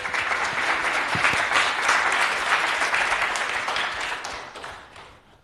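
Audience applauding: many hands clapping steadily, then dying away near the end.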